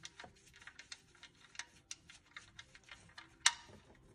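Faint, irregular light clicks, about three or four a second, as a gloved hand unscrews an oil drain plug from the engine oil pan, with one sharper click about three and a half seconds in as the plug comes free.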